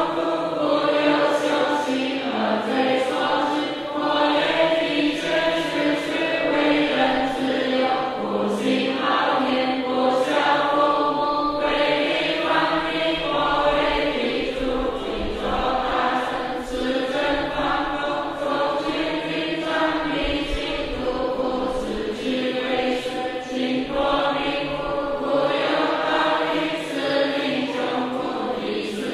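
A group of voices chanting a Chinese Buddhist repentance text together in a steady recitation. Sharp knocks keep time beneath the voices.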